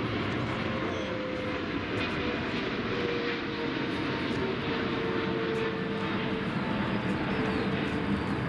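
Emirates Boeing 777-300ER's GE90 turbofans running on landing approach: a steady jet rumble with a faint whine that slowly falls in pitch.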